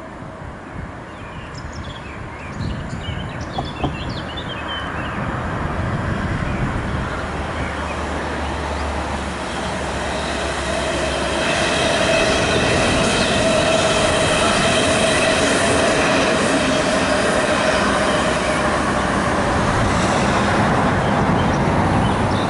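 A passenger train passing close by on the rails. The rumble grows louder over the first twelve seconds or so, then holds steady, with several steady high tones riding over it. A few short high chirps come in the first few seconds.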